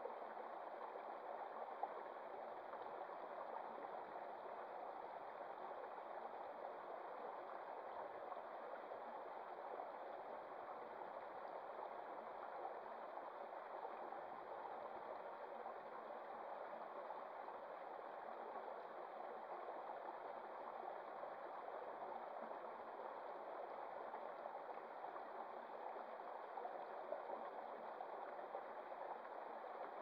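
Shallow rocky stream running over stones and small cascades: a steady rush of flowing water.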